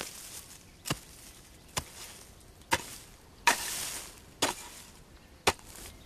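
A hand hoe chopping into dry, dusty soil: about seven sharp blows, a little under a second apart.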